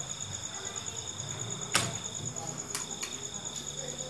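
Crickets chirring steadily in the background, a continuous high pulsing trill. About two seconds in there is one sharp click, followed by a few fainter clicks.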